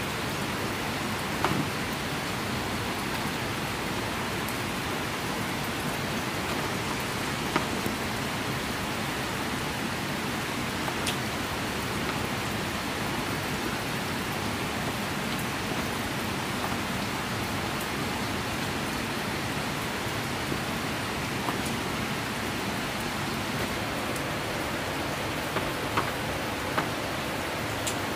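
Rain falling steadily, an even hiss with a few sharp ticks of single drops here and there.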